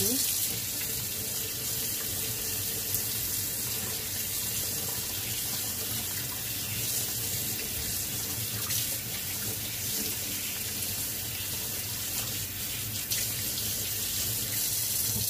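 Tap running steadily into a sink, then shut off suddenly near the end.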